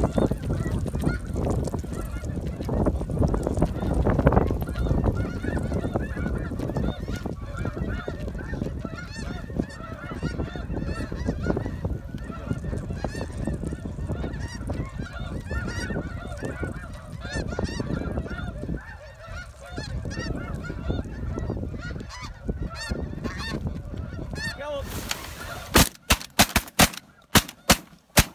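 A flock of snow geese calling, many high yelping honks overlapping. About 26 seconds in comes a rapid volley of roughly eight shotgun shots in about two seconds.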